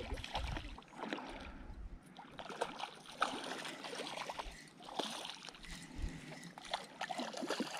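Hooked rainbow trout splashing at the surface of shallow water in short, irregular bursts as it is played on a line.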